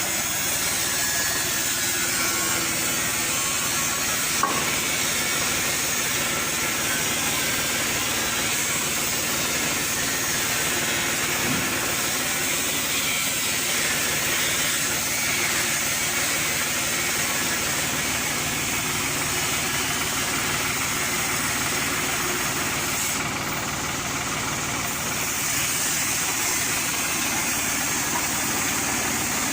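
Pressure washer running steadily, its motor with the loud hiss of the water jet. The hiss drops off briefly about 23 seconds in and then comes back.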